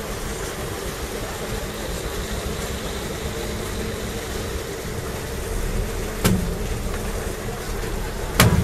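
Steady low drone of the motor ship Rogaland's engine idling alongside the quay, broken by two sharp knocks, one about six seconds in and a louder one near the end.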